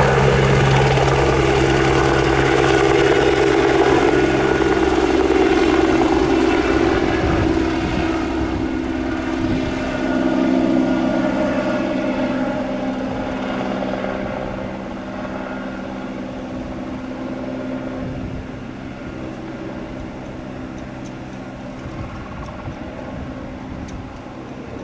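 Airbus Helicopters AS355N twin-turbine helicopter after takeoff: rotor and turbine sound, loud at first, then fading steadily as it climbs away, its tone dropping slightly about ten seconds in.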